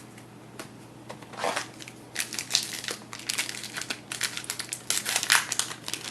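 A trading-card pack wrapper crinkling and rustling as it is torn open and handled, the crinkles starting about a second and a half in and going on in quick, dense bursts.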